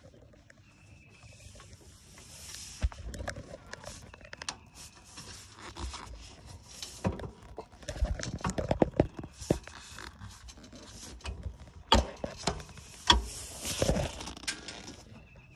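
Handling noises on a Scag Patriot zero-turn mower: irregular clicks, knocks and scraping as the seat is tipped up and a hand works in beside the engine, with a couple of sharper knocks near the end.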